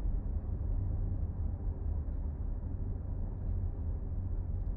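Steady low rumble of a vehicle driving on a snow-packed road, heard from inside the cabin.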